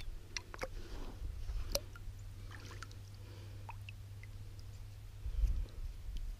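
Water dripping and lightly splashing as a small dug-up find and a digging tool are lifted out of shallow lake water, with scattered small clicks. A brief low rumble comes about five seconds in.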